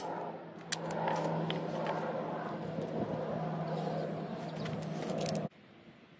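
A steady engine-like rumble with a constant low hum, with a few short sharp clicks on top. It cuts off abruptly about five and a half seconds in, leaving only faint background.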